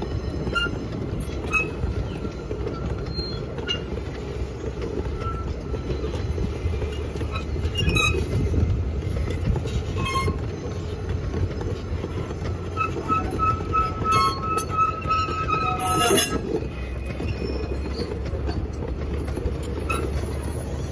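Loaded wagons of a two-foot-gauge sugarcane train rolling past on the rails: a steady low rumble of steel wheels and track. Short high wheel squeals and occasional sharp clicks rise out of it, with the longest squeal held for a few seconds about two-thirds of the way through.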